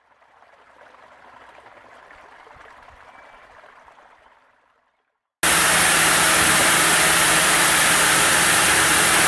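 Sawmill saw running with a loud, steady rushing noise and a low hum, starting suddenly about five and a half seconds in. Before it there is a faint hiss that swells and fades out, then a moment of silence.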